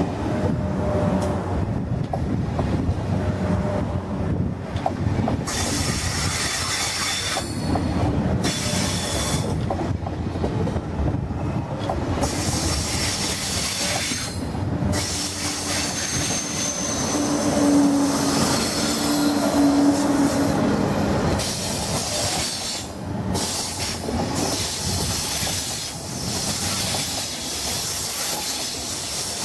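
TGV high-speed train cars rolling past at low speed: a steady rumble of wheels on rail, with high wheel squeal coming and going and a held squeal a little past the middle.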